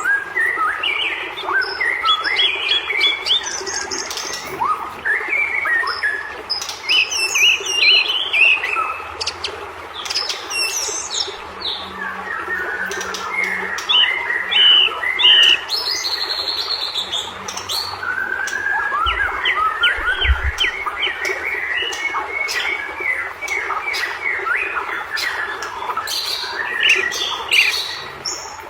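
White-rumped shama singing hard: a fast, unbroken string of varied whistles, chirps and harsh squawking notes, with rising and falling slurs.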